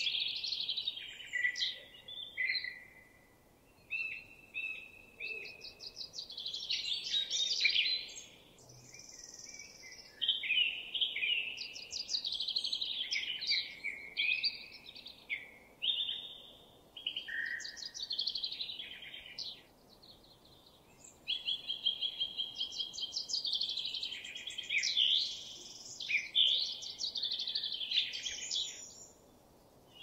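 Songbirds singing: a run of warbling and rapidly trilled phrases, each a few seconds long, with short pauses between them.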